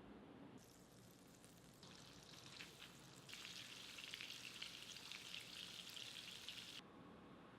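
Food sizzling as it fries in a pan. The sizzle starts sharply under a second in, grows louder about three seconds in, and cuts off abruptly near the end.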